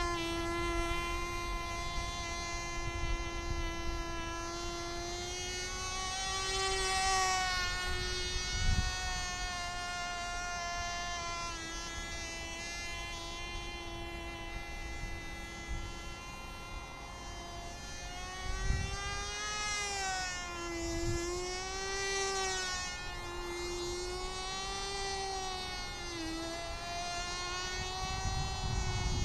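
Tiny Cox TD .010 two-stroke glow engine on a model airplane buzzing high overhead: a thin, insect-like whine whose pitch wavers up and down as the plane flies past and turns, most from about two-thirds of the way in. A few brief low rumbles of wind on the microphone.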